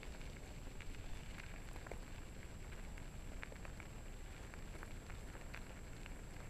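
Wheels of a dog-pulled kick scooter rolling over a gravel road: a steady crackling hiss with scattered sharp ticks of small stones, over a low rumble of wind on the microphone.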